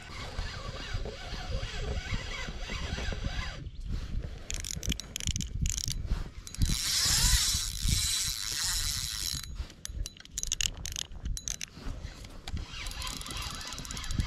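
Fishing reel being cranked against a hooked fish, a steady mechanical ratcheting with low handling knocks, and a louder stretch of high hiss from about six to nine seconds in.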